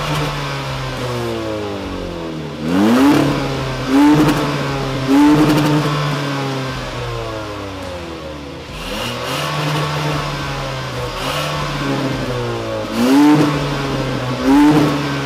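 Kia Soul GT-Line four-cylinder engine idling and revved in several short throttle blips, each a quick rise and fall in pitch, through a tuned exhaust with a vacuum-operated valve. The valve is closed for the earlier blips and open for the last ones.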